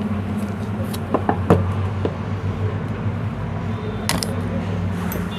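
Hands handling a smartphone's cardboard retail box: a few light taps and clicks, and a short crackle of packaging about four seconds in, over a steady low hum.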